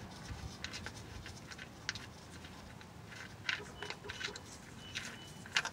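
Faint, scattered metallic clicks and light scraping as a Jeep Grand Cherokee starter motor is held and worked loose from its mount, with a couple of brief faint squeaks and a sharper click near the end.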